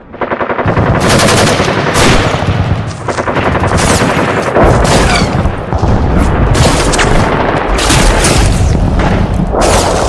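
Recorded machine-gun fire sound effect played very loud: long, continuous runs of rapid shots, starting abruptly as the music cuts off.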